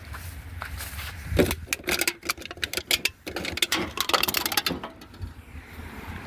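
Packing material from an appliance unboxing being gathered up and handled: a thump about a second in, then a quick run of crackles and clatters lasting a few seconds before it dies away.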